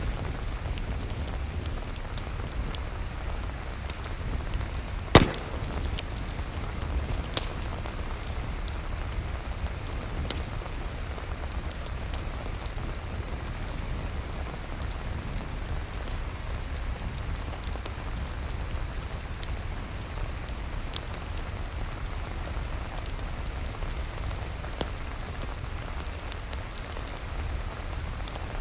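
Steady rain with scattered sharp crackles and pops from a wood fire in a fireplace, one loud pop about five seconds in.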